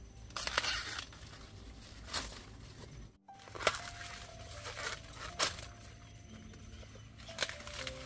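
Ears of sweet corn being snapped off their stalks by hand: five sharp cracks about one and a half seconds apart, with rustling and tearing of the corn leaves. Soft background music with held tones plays underneath.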